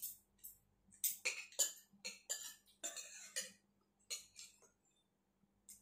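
Eating sounds: a metal spoon and fork working food on a plate, a quick, irregular run of short scrapes and clicks that is busiest in the first half and dies away near the end.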